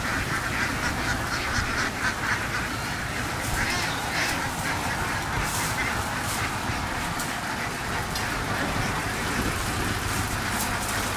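A large flock of domestic laying ducks quacking continuously, many calls overlapping into a steady din.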